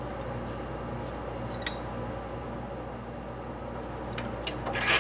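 A few sharp metallic clicks from metal parts and tools being handled on a metal lathe: one about a third of the way in, then several close together near the end, over a steady low hum.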